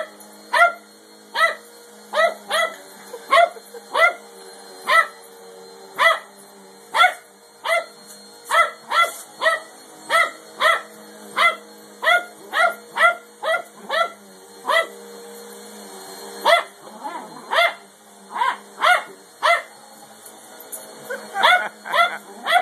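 A dog barking repeatedly at an upright vacuum cleaner, about two barks a second, with a pause of a couple of seconds before a quicker run of barks near the end. The vacuum's motor runs underneath as a steady hum.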